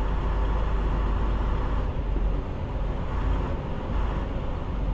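Diesel engine of a flatbed semi-truck running steadily as the rig moves slowly at low speed, a constant low drone with road and cab noise.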